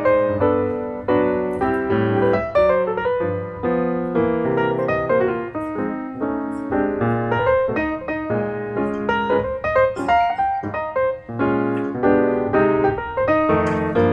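Background piano music, a continuous run of notes played several to the second.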